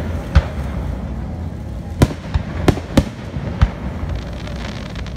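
Aerial fireworks shells bursting: a series of sharp bangs, one early and several close together between about two and four seconds in, over a steady low rumble.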